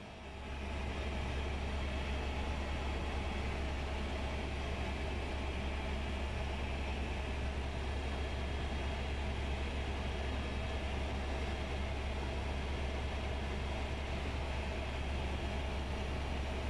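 Helicopter in cruise heard from inside the cabin: the steady drone of rotor and turbine with a strong constant low hum, rising in over the first second.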